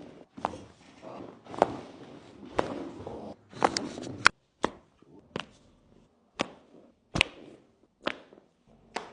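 Joints cracking under chiropractic adjustments: a series of about a dozen sharp pops at uneven intervals, with a rough rustling noise between the first few.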